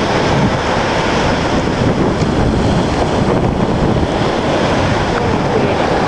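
Wind blowing across the microphone over waves breaking on a sandy beach: a loud, steady rush of noise.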